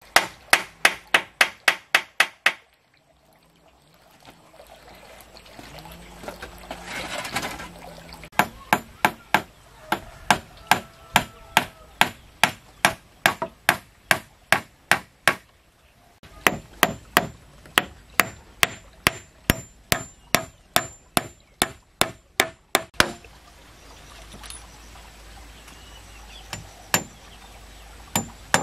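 A hand tool striking wood over and over, in fast runs of about three blows a second with short pauses between the runs.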